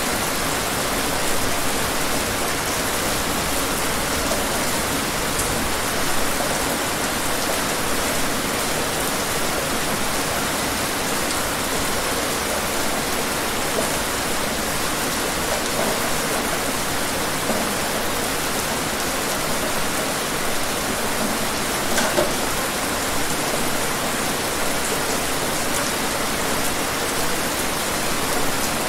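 Steady rain falling: a dense, even hiss with now and then a single louder drop standing out.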